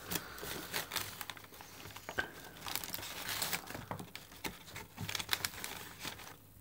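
White paper takeaway wrapping crinkling and rustling in irregular bursts of crackle as it is pulled open by hand around a box of chips.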